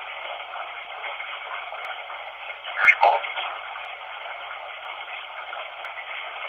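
Steady hiss of running water, thin and narrow-sounding like a radio, with a sharp click and a brief louder burst about three seconds in.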